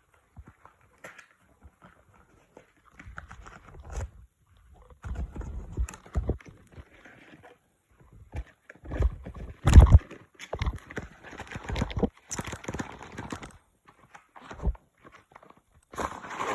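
Irregular knocks, taps and rustling from a product and its packaging being handled, in uneven bursts, the loudest knock about ten seconds in.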